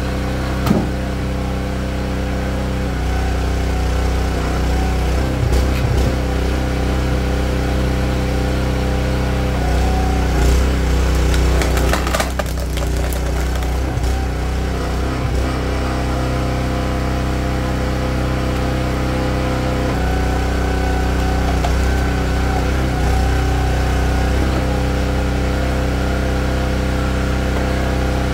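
Small gasoline engine of a Split-Fire 2265 log splitter running steadily, with wood cracking as a log is split, most of it in a cluster about halfway through.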